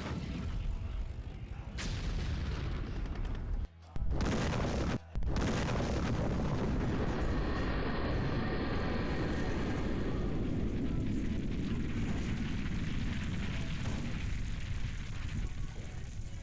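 Chainsaw running hard, cutting into a tree trunk: a loud, rough, low engine noise, broken by two brief cuts about four and five seconds in, and fading toward the end.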